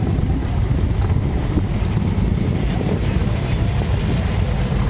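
Cars driving past close by, their engines a steady low rumble, with wind noise on the microphone.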